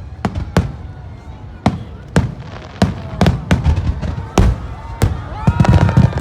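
Aerial firework shells bursting in quick succession: about a dozen sharp booms, bunching into a dense volley near the end.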